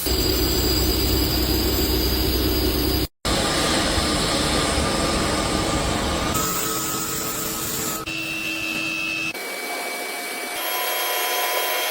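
Machine-tool cutting noise from a CNC lathe: steady grinding and rubbing with a thin whine, changing abruptly several times from one short clip to the next.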